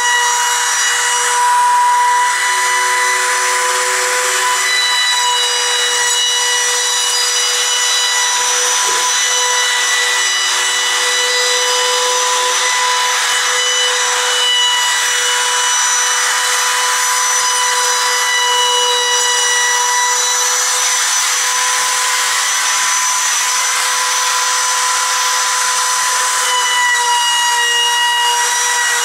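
Compact trim router with a 1/8-inch roundover bit, running steadily while it rounds over the edges of wooden boards and frames. A high, constant motor whine sits over the hiss of the cutting.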